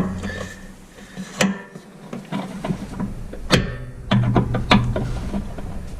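Metal hand tools clicking and scraping against a snowblower's auger parts while a spring is pried out, with two sharp metallic clicks about a second and a half and three and a half seconds in and a run of smaller clicks after.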